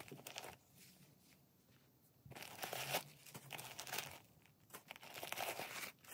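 Paper stuffing crinkling and rustling as it is pulled out of a new handbag, in uneven bursts that are loudest from a little past two seconds to three seconds in and again from about five to six seconds in.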